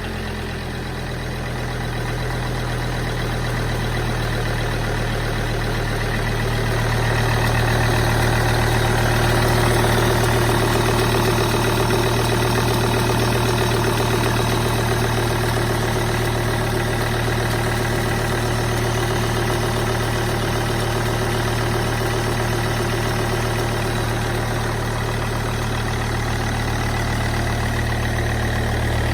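Volvo XC90 2.4 five-cylinder turbodiesel idling steadily, running harshly with a metallic knock.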